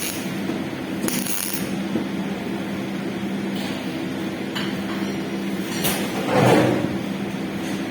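Steady electrical hum with a few light metallic clinks, and a louder noisy swell about six and a half seconds in.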